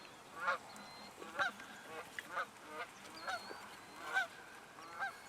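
Geese honking: a string of short, repeated honks, roughly two a second.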